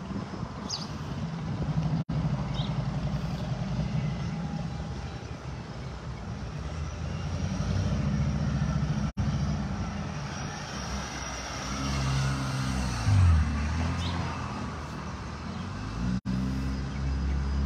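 Low rumble of a motor vehicle engine running nearby, its pitch shifting up and down as it goes. The audio cuts out for an instant three times.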